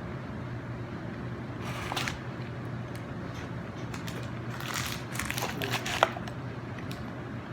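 Close-miked eating sounds of crunchy food being bitten and chewed: one bite about two seconds in and a longer run of crunching a little before the end, closing with a sharp click, over a steady low hum.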